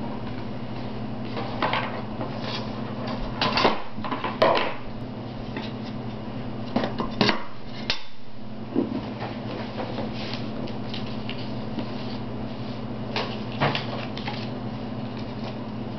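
Handling noises of a picture frame being assembled by hand: the cardboard backing and frame tapping, scraping and knocking on a tabletop, in a few short clusters of sharp clicks, over a steady low hum.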